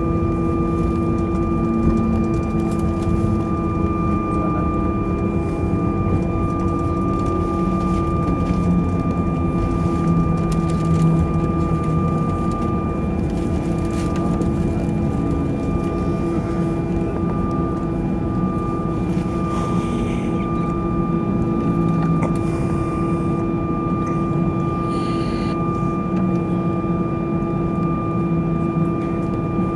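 Airbus A320 cabin noise while taxiing: the engines idling with a steady hum and a few steady whining tones over a low rumble.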